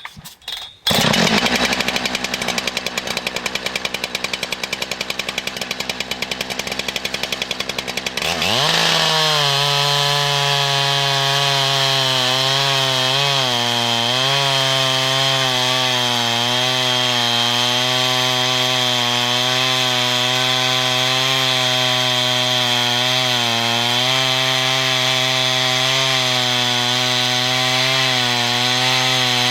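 Big chainsaw on a chainsaw lumber mill: it starts about a second in and runs roughly for several seconds. About eight seconds in it revs up and then holds steady high revs while ripping a slab cut along the log, the pitch dipping slightly now and then under load.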